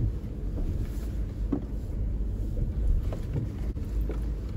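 Steady low in-cabin rumble of a Suzuki Jimny 5-door's 1.5-litre K15B four-cylinder engine and drivetrain as the car moves slowly, with a few faint knocks about a second and a half in and again around three and four seconds in.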